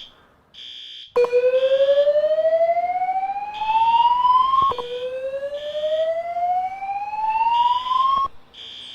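Voice-evacuation fire alarm speakers sounding the slow whoop tone twice, each whoop a rising sweep lasting about three and a half seconds. Over it, a high-pitched beep repeats in groups of three, a temporal-three alarm pattern.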